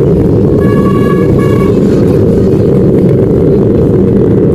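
Home theatre speaker under test putting out a loud, steady low rumbling noise. A short high tone comes through about a second in, broken once.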